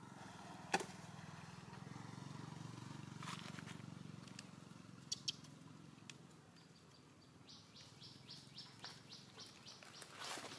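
Faint outdoor background: a low steady hum through the first half, a sharp click about a second in, and from about halfway a regular high chirping, about four chirps a second.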